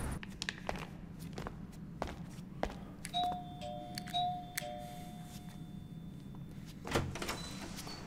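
Electronic apartment doorbell chiming a two-note ding-dong, high then low, rung twice about a second apart. Near the end a thunk follows as the apartment door is opened.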